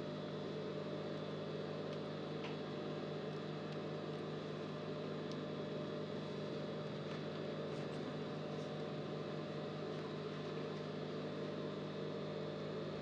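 A steady electrical hum made of several fixed tones, with a few faint light ticks.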